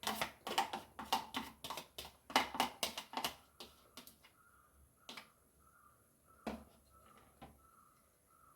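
A cooking utensil tapping and scraping against a bowl or pan while the egg batter goes in: quick sharp clicks, two or three a second for about three seconds, then a few scattered taps.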